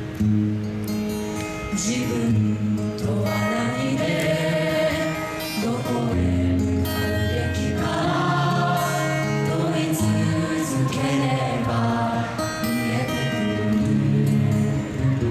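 Live performance of a slow ballad: several voices singing together over a high school wind band's sustained chords and steady bass.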